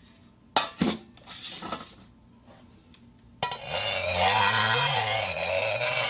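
Iron plate clanking: two sharp metallic hits about half a second in, followed by a few lighter knocks. Background music comes in about three and a half seconds in.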